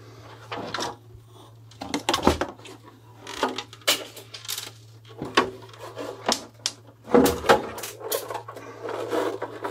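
Irregular plastic clicks, knocks and scraping from the UPS's plastic front panel being handled and worked apart by hand, over a steady low hum.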